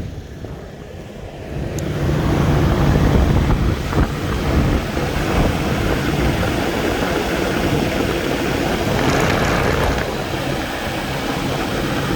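2004 Lexus GX 470's 4.7-litre V8 idling, with wind on the microphone; it gets louder about two seconds in and then holds steady. Its accessory belt drive makes a noise that is taken for a dragging pulley, a worn belt or a bad bearing.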